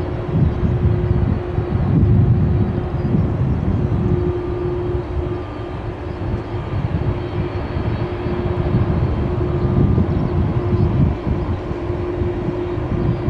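Boeing 747 freighter's four jet engines running as it rolls along the runway: a steady low rumble with a held hum above it.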